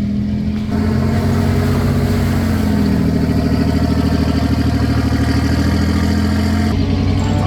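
Off-road vehicle engine running with a steady, fast, even pulse; it picks up and gets louder about a second in.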